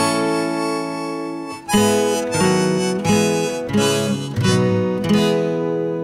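Instrumental background music, a slow melody with held notes changing about every half second to a second over a chordal accompaniment.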